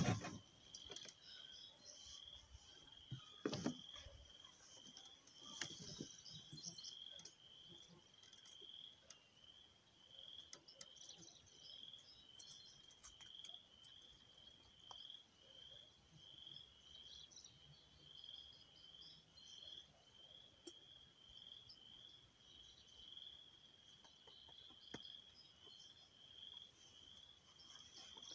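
Faint insect chirping outdoors: a steady high pulsing call repeating about one and a half times a second, with a couple of short knocks a few seconds in.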